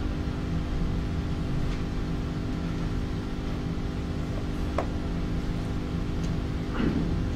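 Steady electrical hum, a low drone with even overtones, with a faint click about five seconds in and a brief soft noise near the end.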